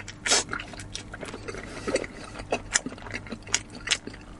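Close-up mouth sounds of a person biting and chewing braised pork snout: irregular wet clicks and smacks, several a second.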